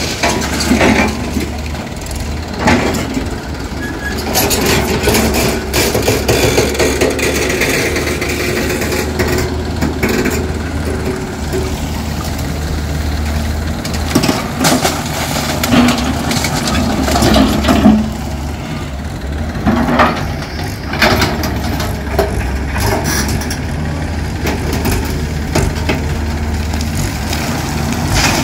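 Heavy diesel engine of a Hyundai crawler excavator running steadily, with repeated knocks and clatter of rock and soil as the bucket digs and dumps into a tractor trolley.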